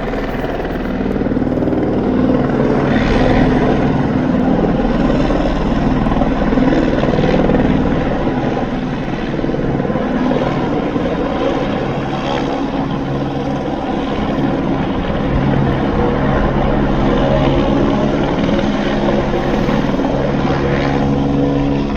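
Helicopter running steadily, its engine and rotor giving a loud hum of several steady tones that swells and eases gently every few seconds.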